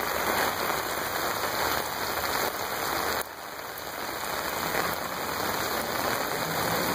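Steady hiss of heavy rain falling. It drops off suddenly about three seconds in, then slowly builds again.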